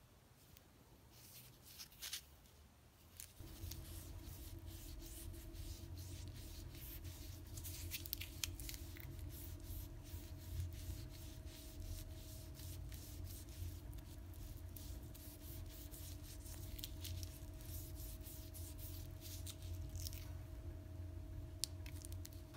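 Light clicks and rubbing as a knife handle is turned in the hand. About three seconds in, a steady low hum with a held tone sets in and keeps going.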